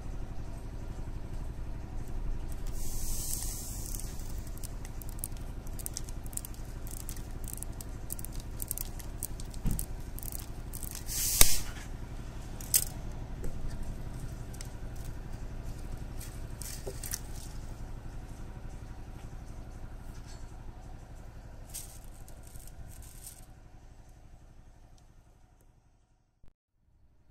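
Clear nylon monofilament fishing line being cut with scissors and handled: a run of small sharp snips, clicks and scraping rustles, with one loud sharp click a little before the middle, over a steady low rumble. The sound fades out near the end.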